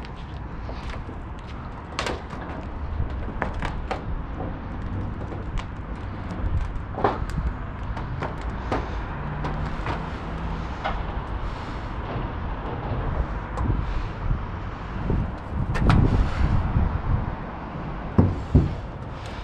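Wind rumbling on a body-worn camera's microphone, with scattered knocks and scuffs of footsteps and gloved hands on concrete and rusty sheet-metal roofing. The rumble and knocks grow louder about sixteen seconds in.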